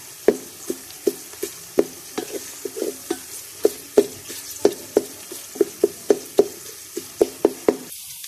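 Wooden spatula knocking and scraping against a metal pot while sliced onions are stirred in hot oil, about three knocks a second over a steady sizzle. The stirring stops abruptly just before the end.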